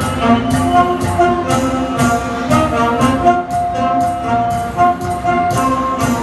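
Saxophone ensemble playing a slow melody in sustained notes over a steady beat.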